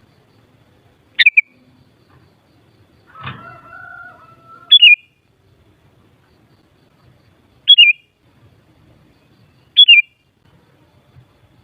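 Sooty-headed bulbul (kutilang) giving four short, sharp calls a few seconds apart, each a quick run of notes falling in pitch. A fainter rustle with a brief held tone comes between the first and second calls.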